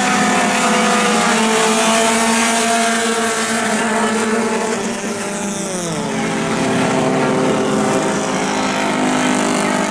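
Engines of a pack of Amateur 4 dirt-track race cars running hard together, several engine notes layered at once. About five seconds in, one engine's pitch falls sharply and settles lower.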